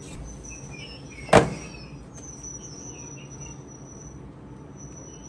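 High-pitched chirping and trilling calls against a steady background hiss, with a single loud knock about a second and a half in.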